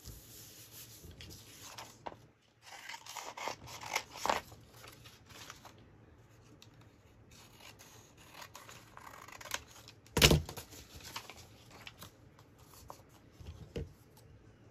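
Sheets of paper being handled and rustled against a cutting mat, in uneven bursts over the first several seconds. A single loud thump about ten seconds in, with a smaller click near the end.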